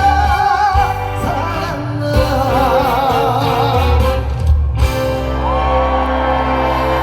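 Live trot song: a male singer singing with heavy vibrato over band accompaniment, moving into long held notes about halfway through.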